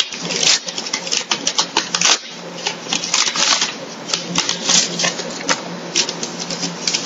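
Paper crackling and rustling as a folded paper note is unfolded and handled, a quick, irregular run of crinkles.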